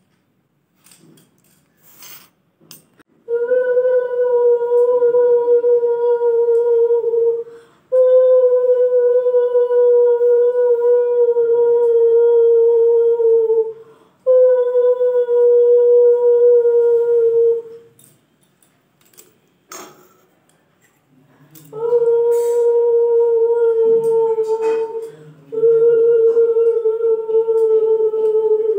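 Conch shell (shankha) blown in five long, steady blasts of about three to six seconds each, with a brief breath between them. Each blast holds one steady note that sags slightly in pitch toward its end.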